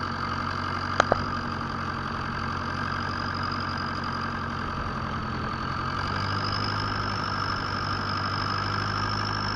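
Fishing boat's engine running steadily, with a high whine over it and two sharp knocks about a second in. About six seconds in, the engine gets a little louder and the whine rises slightly.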